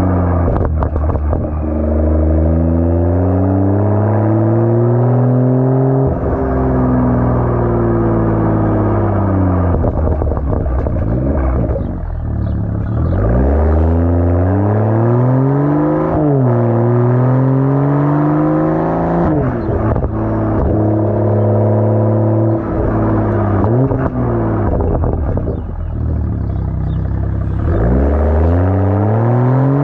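2023 BMW M240i xDrive's 3.0-litre turbocharged inline-six running through a muffler-deleted exhaust with no resonator. Its pitch repeatedly climbs under acceleration, then sinks slowly as the throttle is lifted, with a few short cracks near some of the changes.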